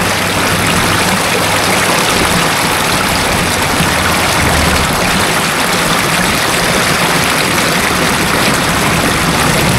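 Loud, steady rush of stream water running through a tunnel under a highway, with a low, steady hum of passing truck and car traffic beneath it.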